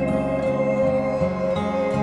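Calm instrumental background music in a new-age style, held tones with the lower notes changing about every half second.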